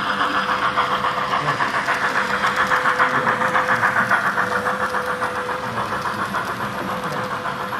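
HO-scale model steam train running past on the layout track: a rapid, even beat over a steady thin whine, growing louder to a peak about three seconds in and then fading.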